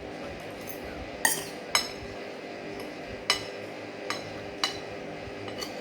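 Eating utensils clinking against a plate: about six separate sharp, ringing clinks, the two loudest close together about a second in.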